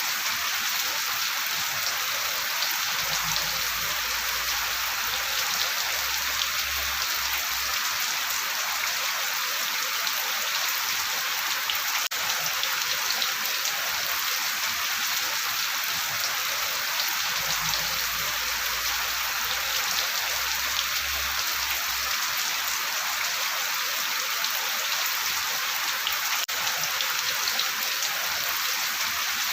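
Steady, dense rainfall, an even hiss of many drops on a surface. A faint low rumble rises under it twice and fades again.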